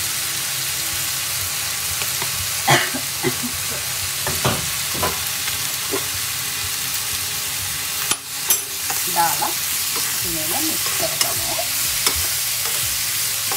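Diced vegetables sizzling steadily in a hot nonstick wok, with a spatula knocking and scraping against the pan every few seconds as the mix is stirred.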